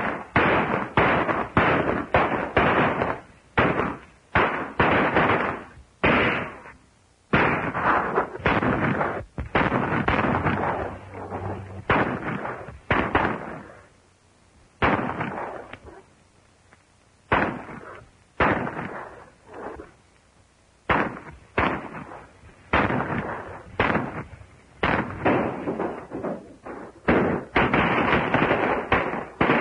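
A gunfight: dozens of gunshots at irregular spacing, some in quick runs, each ringing briefly. The shots thin out about halfway through and then come thick again near the end.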